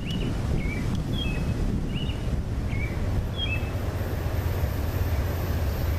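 Wind rumbling on the microphone, with a bird calling in short, quick chirps, several in a row, during the first three and a half seconds.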